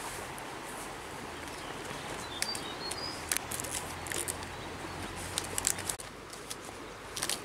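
Fresh banana leaves rustling and crackling a few times as they are handled and laid over a pumpkin, against a steady outdoor hiss. A bird chirps briefly about three seconds in.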